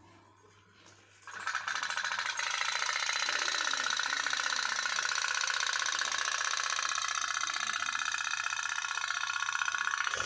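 Toy pop-pop (putt-putt) boat's candle-heated steam engine starting up about a second in and then running with a fast, steady tap-tap-tap as the boat moves through the water.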